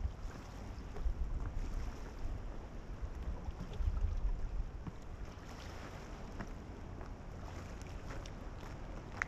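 Wind buffeting the microphone in gusts, heaviest about a second in and again around four seconds, over a soft wash of sea. A few faint ticks of footsteps on rock.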